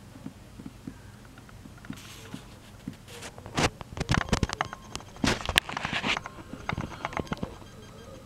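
Irregular handling noise: a run of small clicks, taps and rustles that starts about two seconds in, is densest and loudest in the middle, and dies away near the end.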